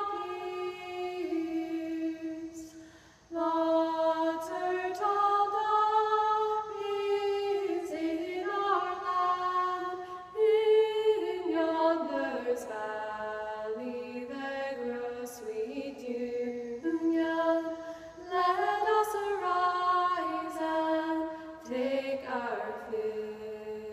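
Women's voices singing a Shaker song a cappella, with a brief break about three seconds in.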